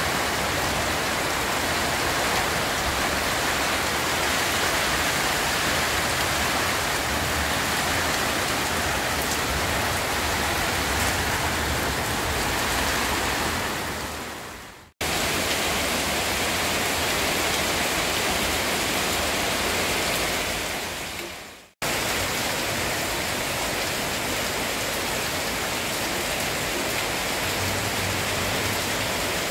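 Heavy rain falling steadily on leaves and wet ground, an even hiss. The sound fades out and comes back twice.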